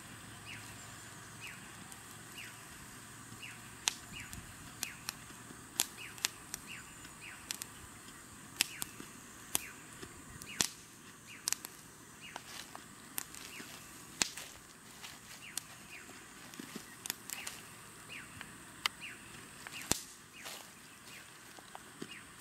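Irregular sharp clicks and snaps, several a second at times, over a faint steady hiss, with short high chirps scattered between them.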